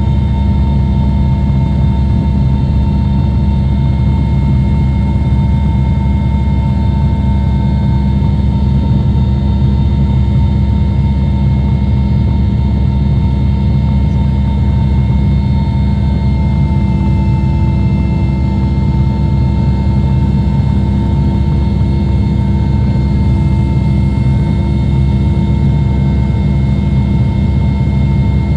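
Mi-8 helicopter in flight, heard on board: the loud steady drone of its twin turboshaft engines and main rotor, with several steady whining tones above the rumble.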